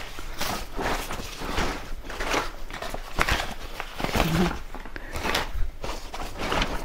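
Irregular rustling of plastic wrap and fabric, with light knocks, as wagon parts are unpacked and handled.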